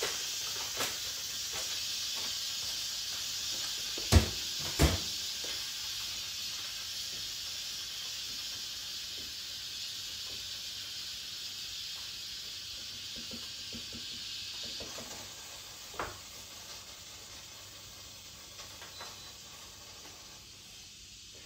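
Steam hissing steadily from a Crockpot Express pressure cooker's release valve as the pressure is vented by hand, dying away over the last several seconds as the cooker depressurises. Two sharp knocks come about four seconds in, and another near sixteen seconds.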